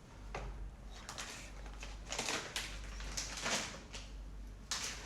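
Handling noises from a plastic vacuum sealer and its sealed bag: a few short clicks, clunks and plastic rustles as the lid is released and the bag is taken out, the loudest a little over two seconds in and near the end.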